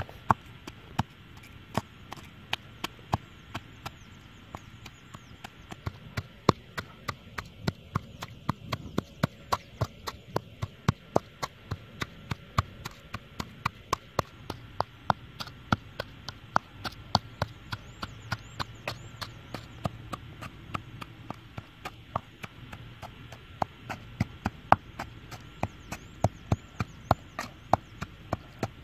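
A hand-held stone pounding red chillies in a coconut-shell bowl set on the ground: repeated sharp knocks, few at first and then a steady two or three a second.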